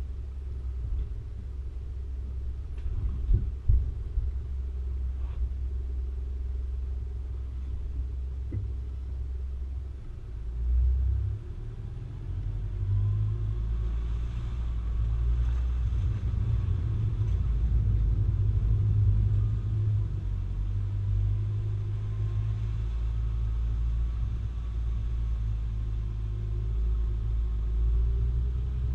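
Four-wheel-drive vehicle driving along a track: a steady low engine and road rumble, with a few sharp knocks in the first few seconds as it goes over bumps.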